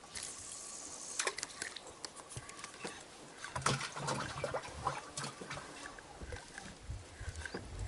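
Irregular clicks and knocks with water sloshing, a few duller thumps among them: gear and a catch being handled in a small boat on the water.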